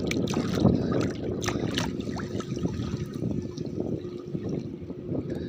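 Water splashing and trickling beside a small boat, with a run of small splashes and drips in the first two seconds, then a steadier wash.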